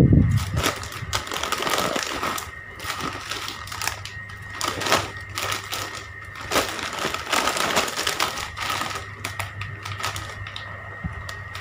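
Plastic snack packets crinkling and rustling as they are handled and turned over, an irregular run of crackles and clicks, over a faint steady hum.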